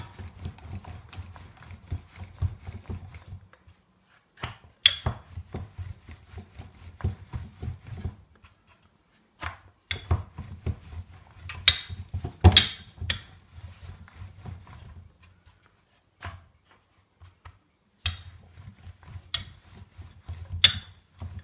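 Wooden rolling pin rolling out a stuffed radish paratha on a round wooden board: runs of low rubbing rolls broken by short pauses, with a few sharp knocks.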